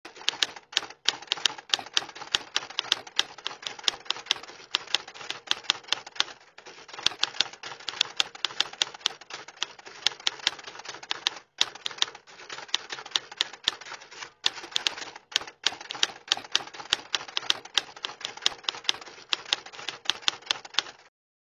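Typewriter sound effect: keys clacking in fast, irregular runs with a few brief pauses, stopping shortly before the end.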